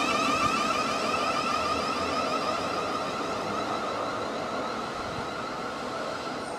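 Electric traction-motor whine from a Thameslink Class 700 Desiro City unit: a stack of high steady tones over rail and running noise, fading as the train draws away.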